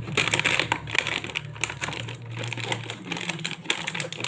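Plastic snack packaging crinkling and crackling as a ready-to-eat bhel pack is opened and its pouches handled: a run of irregular crackles.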